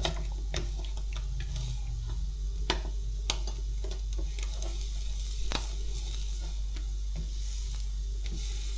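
Food frying at high heat, with no butter added, in a Tefal Jamie Oliver Cook Smart 24 cm stainless steel frying pan: a steady sizzle with scattered sharp pops and ticks.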